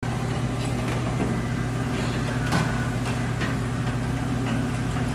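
A vehicle engine running at a steady idle, with a few faint knocks.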